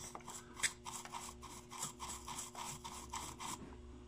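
Soldering iron tip jabbed and wiped in a brass-wool tip cleaner, rapid scratchy strokes about five a second, stopping about three and a half seconds in: solder is being cleaned off the tip.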